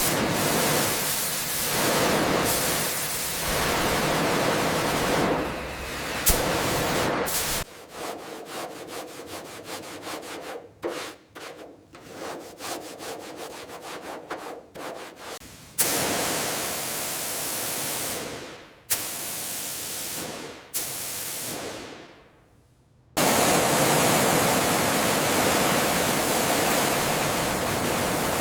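Abrasive rubbing noise from workshop restoration work, cut together from several shots: steady scraping, a middle stretch of many quick separate strokes, then steady scraping again after abrupt cuts.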